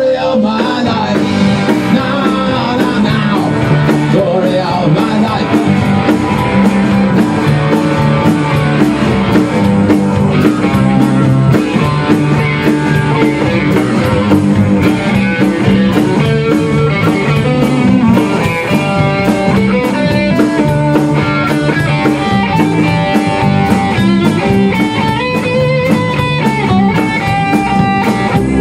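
Rock band playing live in a rehearsal room: electric guitar, bass guitar and drum kit, with a steady cymbal beat.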